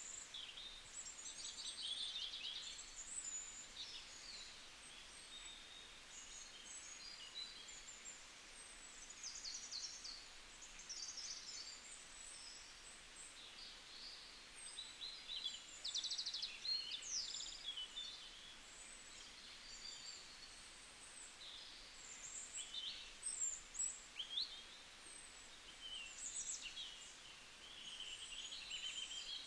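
A chorus of small birds chirping and trilling, many short high calls overlapping throughout, over a faint steady hiss.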